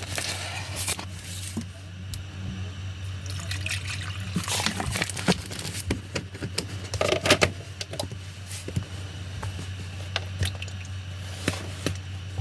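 Coffee machine running after repair: a steady low pump hum, with water pouring and gurgling and scattered clicks.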